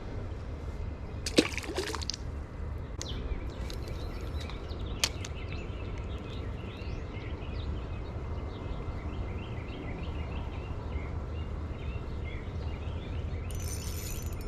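Creek water running and trickling steadily, with a short splash about a second and a half in and a sharp click near five seconds.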